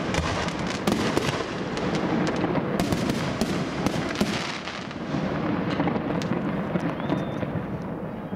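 Fireworks going off in a dense, rapid barrage of cracks and bangs over a continuous rumble, thinning out over the last few seconds.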